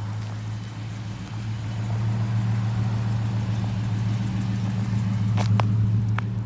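1969 Dodge Charger's engine running steadily at low revs, a deep even drone that gets louder about two seconds in. A few sharp clicks come near the end.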